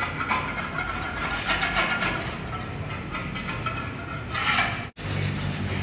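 Small mason's trowel scraping old wall paint that has been softened by chemical paint remover, in repeated strokes; it breaks off abruptly near the end.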